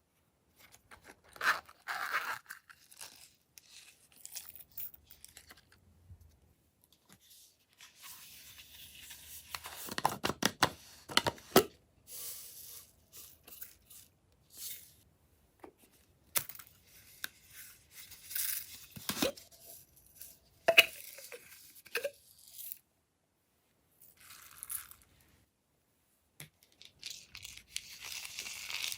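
Hands stretching and squishing glossy slime, making irregular bursts of sticky, crackly sound with many sharp clicks and pops, pausing between handfuls. A few short squeaks come about two-thirds of the way through.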